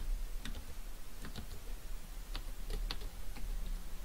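Computer keyboard typing: a handful of separate keystrokes, irregularly spaced.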